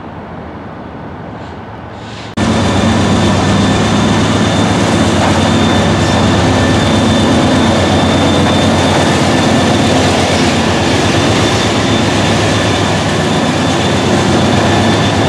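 A quieter diesel rumble from the yard, then about two seconds in, a sudden switch to a close BNSF GE C44-9W (Dash 9) diesel locomotive running loud as it passes: a dense engine rumble with a steady high whine over it.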